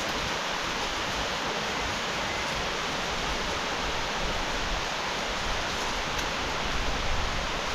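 Steady rushing of a nearby mountain stream, an even wash of water noise.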